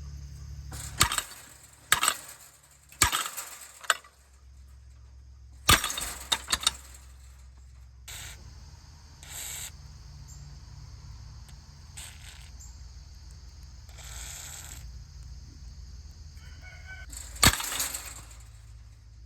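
Several loud, sharp knocks and rustles, four about a second apart near the start, a cluster around six seconds and one near the end, over a steady high drone and a low hum.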